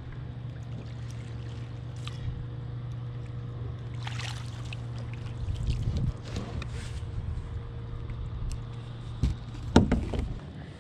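Netting a hooked Australian salmon beside a plastic kayak: a splash as the landing net scoops it from the water, then sharp knocks near the end as the net and fish come aboard against the hull. A steady low hum runs underneath.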